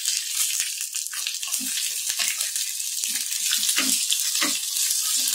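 Chopped green chillies frying in hot oil in a small steel pan for a tadka: a steady sizzle with crackling pops from the mustard seeds and curry leaves. From about a second and a half in, a spoon stirs and knocks against the pan.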